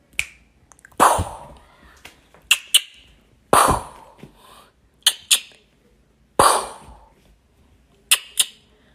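A person making short mouth gunshot sounds at a kitten, about eight shots. Some come singly, some in quick pairs, every second or so.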